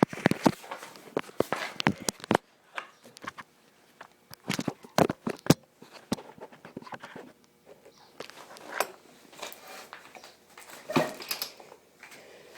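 Homelite XL12 chainsaw being pull-started, with several short bursts of clatter from the recoil starter and no sign of the engine firing. The saw does not catch, which the owner puts down to the engine probably being frozen.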